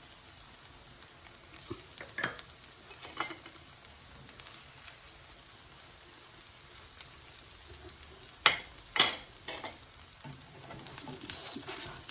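Grated-potato and egg fritters sizzling gently in a non-stick frying pan. A fork and a spatula tap and scrape against the pan now and then; the loudest are two sharp knocks close together about two-thirds of the way in.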